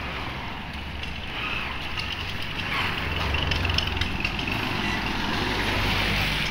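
Motorcycle-and-sidecar tricycle's engine running as it drives past close by, a steady low hum that grows louder from about two seconds in and stays loud.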